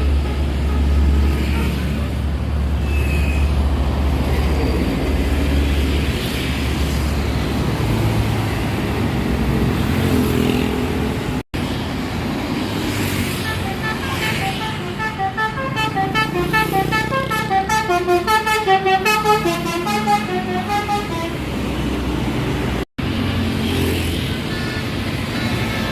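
Intercity bus running with a heavy low rumble, then a bus's telolet basuri melodic air horn playing a fast tune of short notes at several pitches for several seconds past the middle.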